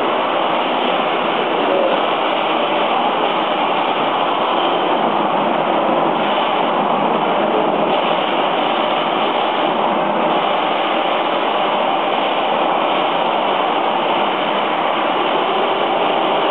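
Radio-controlled model vehicles running: a continuous, even mechanical drone that holds steady without pauses.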